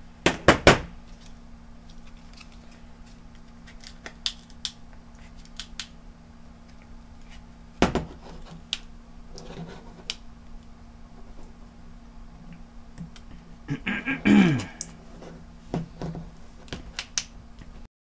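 Hard plastic clicking, snapping and creaking as a laptop battery pack's casing is pried and pulled apart to free its 18650 cells. There are sharp cracks in the first second, another about eight seconds in, and a louder creaking crack near the end that drops in pitch.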